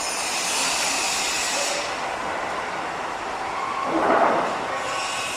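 Construction-site and city noise: a loud, steady mechanical hiss, with a brief louder swell about four seconds in.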